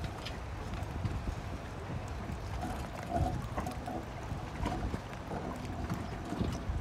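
Wind buffeting the microphone over small waves lapping among shallow shore rocks, with a few light knocks.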